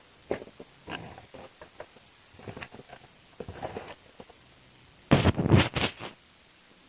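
Handling of a plastic model kit's cardboard box: scattered light scrapes and taps, then a louder cluster of scraping knocks about five seconds in.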